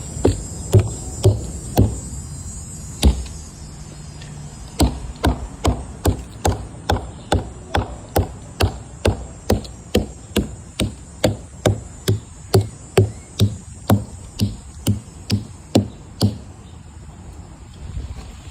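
Mallet striking the trunk of a silver maple to sound it, a few scattered blows and then a steady run of about two strikes a second that stops near the end. The sound of the wood under the mallet is the warning sign that the trunk is at risk of failing.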